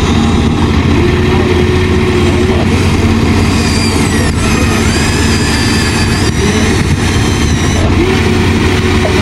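Engine running steadily with a continuous low hum, and a few higher tones gliding up and down over it.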